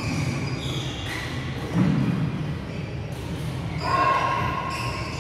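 Badminton play echoing in a large sports hall: racket hits on the shuttlecock and thuds of footwork, with voices and other courts in the background. A louder held high sound rises about four seconds in.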